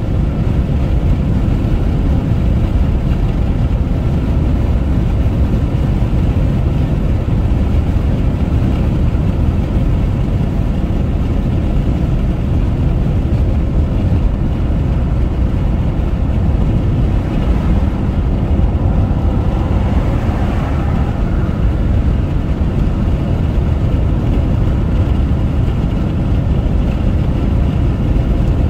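Car driving at highway speed: a steady low rumble of road and engine noise, with a slight rise in hiss about two-thirds of the way through.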